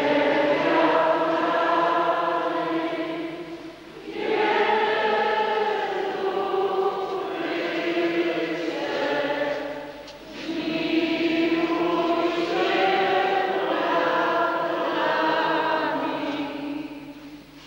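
A church congregation singing a hymn together, with long held notes in phrases that break briefly for breath about four and ten seconds in, then trail off at the end.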